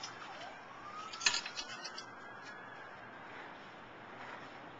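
A distant siren wailing: one faint tone rising slowly in pitch, then fading. A sharp click a little over a second in is the loudest sound.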